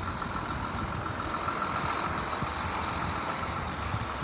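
Steady, distant rumble of the departing grain train's diesel locomotives, with wind buffeting the microphone.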